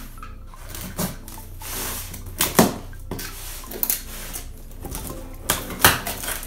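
A cardboard shipping box being opened: a utility knife slitting the tape, then the flaps pulled apart. Several sharp cardboard clicks and knocks, with a brief tearing rustle.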